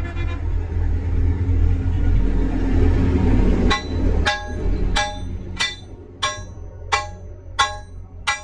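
A low rumble for about the first half, then a hammer striking a rusty steel nut on a threaded steel shaft: about eight sharp blows, roughly one every 0.6 seconds, each ringing metallically.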